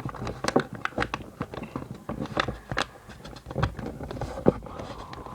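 A sheet of copy paper being folded and creased by hand: irregular crackles, taps and short rubbing strokes as the paper tip is folded to the centre crease and pressed flat.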